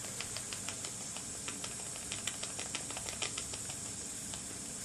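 Small model steam engine under low steam pressure: a steady hiss from the boiler, which leaks into the firebox, with light irregular clicks several times a second.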